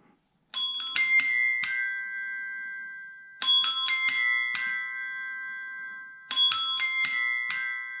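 Desk bells tapped in a short phrase of about five quick notes, played three times over, each phrase left ringing and slowly dying away: a phone ringtone tune played on tuned tap bells.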